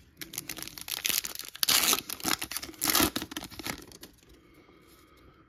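A Topps Chrome trading card pack's wrapper torn open and crinkled by hand. The rips crackle on and off, loudest about two and three seconds in, and stop about four seconds in.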